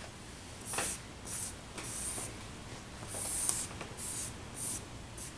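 Charcoal scratching across drawing paper in a run of short, irregular hatching strokes, about seven of them. The longest and loudest stroke comes about three seconds in.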